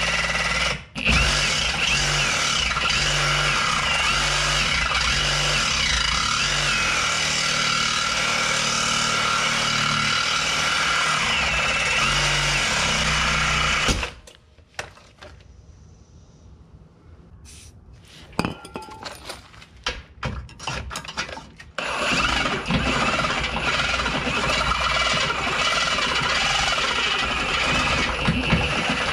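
Ridgid cordless reciprocating saw cutting through a seized steel control arm bolt, running steadily with a short break about a second in. It stops about halfway, a stretch of quieter clicks and knocks follows, and the saw starts cutting again a few seconds later.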